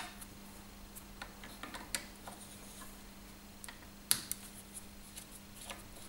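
A screwdriver undoing the retaining screw of a carbon brush holder on a C.E.SET washing machine motor: scattered small metallic clicks and ticks, the loudest about four seconds in.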